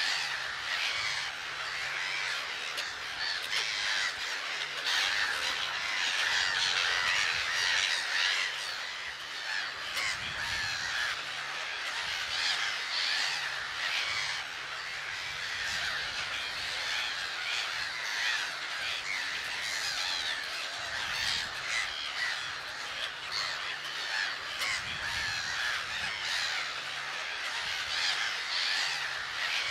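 A large colony of grey-headed gulls calling, many birds at once, their calls overlapping without a break.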